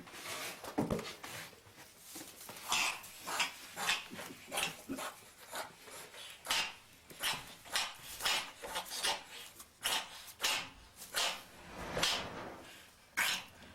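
A cat sneezing over and over: a long run of short, sharp sneezes, about one every half second to a second, without stopping.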